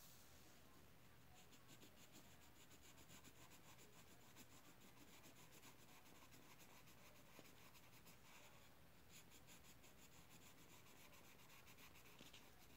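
Faint, rapid scratching of a drawing tool on paper, colouring in. There is a short pause about nine seconds in, and it stops near the end.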